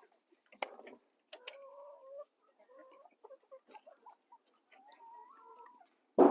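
Hens clucking softly in a few drawn-out calls, with scattered small clicks. Near the end comes a short, loud knock.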